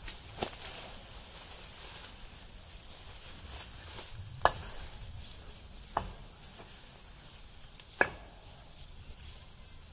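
Four sharp, single knocks or strikes, spaced irregularly between one and a half and four seconds apart, over a faint steady background.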